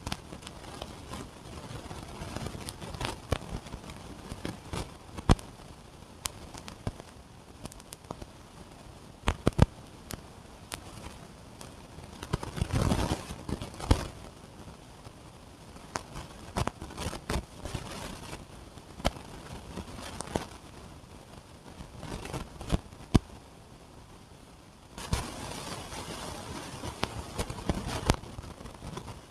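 Packaging being handled while a mixer grinder's boxes are unpacked: scattered sharp knocks and clicks over rustling, with a longer spell of steady rustling near the end.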